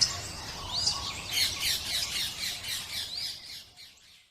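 A chorus of many small birds chirping and squawking together in quick overlapping calls, fading out near the end.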